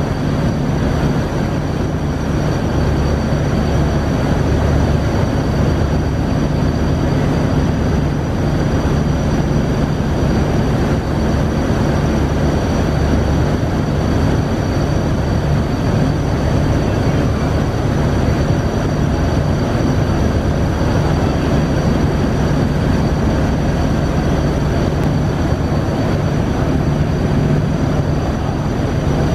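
Steady loud drone of a fast passenger water bus's engines mixed with the rush and churn of its heavy bow wave at speed, with a faint steady high whine over the low rumble.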